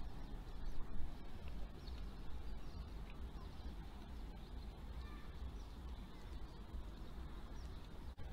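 Outdoor ambience: a steady low rumble with faint, short bird calls scattered through the first half, from a flock of birds over the river.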